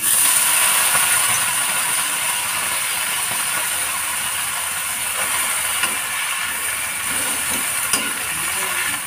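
Kangkong (water spinach) hitting a wok of hot oil and browned garlic over high heat, setting off a loud sizzle that starts suddenly and holds steady, easing slightly. A brief knock sounds near the end.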